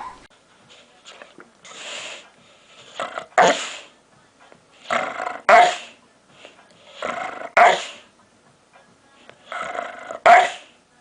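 A dog vocalizing in a repeated pattern: a noisy huff followed by a short, growly bark-like call, four times at about two-and-a-half-second intervals.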